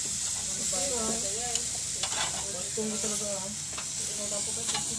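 Marinated squid sizzling on a wire grill over charcoal: a steady hiss, with a couple of light clicks.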